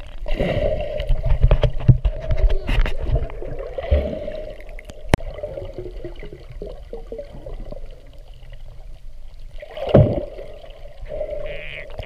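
Muffled underwater sound picked up by a camera held under the sea: water swishing and bubbling around the camera, with heavy low rumbles in the first few seconds, a sharp click about five seconds in, and a thump about ten seconds in.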